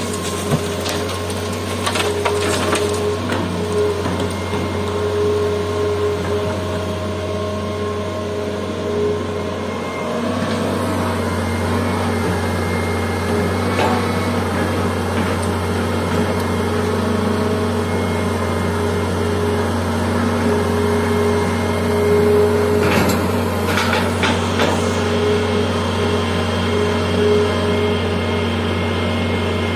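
Hitachi EX200 hydraulic excavator's diesel engine running under working load with a steady drone and a hydraulic whine; the engine picks up slightly about ten seconds in. A few knocks from the bucket and boom come near the start and again about two-thirds of the way through.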